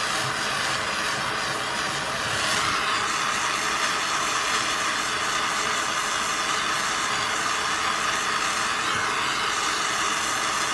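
Jeweler's soldering torch flame hissing steadily as it heats a copper piece to flow sweat solder; the hiss grows a little louder about two and a half seconds in.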